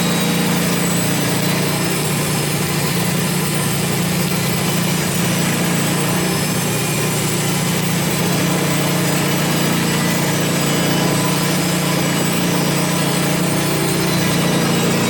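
Sawmill engine running steadily at a constant pitch, with a steady hiss that fits the saw cutting through a pine log.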